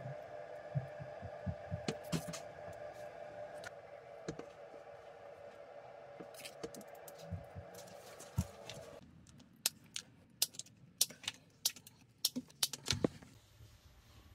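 Sharp plastic clicks and taps of a nylon cable tie and plastic wall clip being fitted around a cable, with a quick run of loud clicks in the last few seconds as the tie is pulled through. A steady background hum stops abruptly about nine seconds in.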